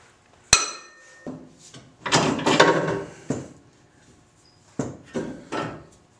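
A steel hand tool clanks once with a short metallic ring, then about a second of loud scraping and rustling of tools and movement against the concrete floor, and a few more knocks near the end.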